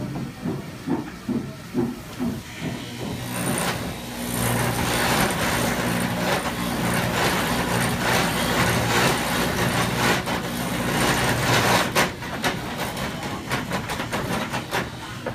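Motor-driven clog copying machine hollowing out the inside of wooden clogs: a steady motor hum, joined a few seconds in by the loud noise of the cutter working into the wood, which eases off near the end after a few sharp knocks.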